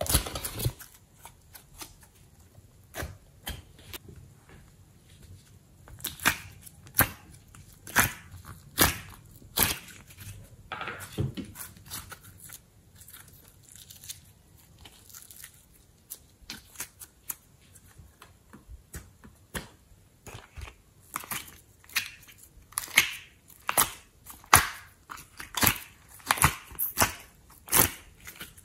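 Glossy slime being squeezed, stretched and folded by hand: irregular sticky clicks and wet pops, some in quick clusters, with quieter stretches between.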